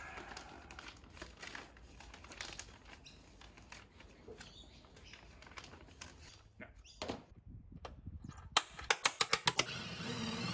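Faint rustling and clicking of diesel heater kit parts and packaging being handled. A quick run of sharp clicks comes about a second and a half before the end.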